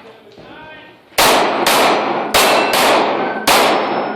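Five 9mm pistol shots fired in quick succession, the first about a second in and the last after a short pause, with steel targets ringing faintly after the hits.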